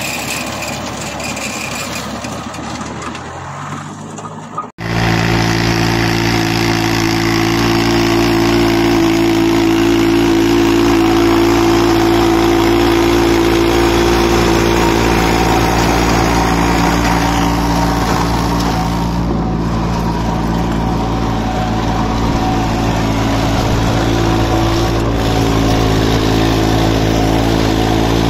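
Diesel engine of a VST Shakti mini tractor running under steady throttle while working a rotary tiller, a steady even drone. About five seconds in the sound cuts abruptly from a rougher engine note whose pitch rises to this louder steady run.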